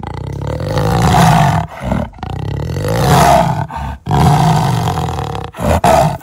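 Big-cat roar sound effect: a series of loud, rasping roars, three long ones followed by a shorter one, with brief breaks between them.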